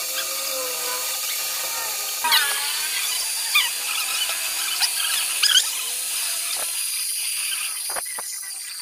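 Small metal lathe running with a steady high whine as its tool cuts a spinning metal workpiece, with short squeals rising out of the cut several times. Near the end it grows quieter, with a couple of clicks.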